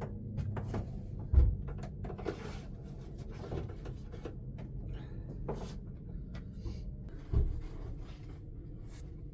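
Clicks, clunks and knocks of a fuel siphon, containers and the heater's tank being handled, with two heavier thumps about a second and a half in and near the end, over a steady low rumble.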